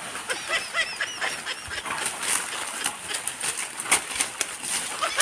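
Birds chirping in short, repeated calls over crackling and rustling of branches and dry leaves as someone climbs down through a tree and steps onto leaf litter.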